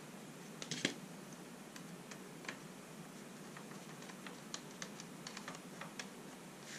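Faint, scattered small clicks and taps of a hand screwdriver and screw being worked into the plastic-and-metal chassis of a radio-controlled truck kit, with a short cluster of clicks just before a second in.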